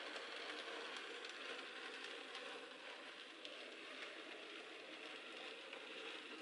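Model railway train running on the layout: a faint steady rattle of metal wheels on the track, with small irregular clicks over the rail joints, growing slightly fainter as the train moves away.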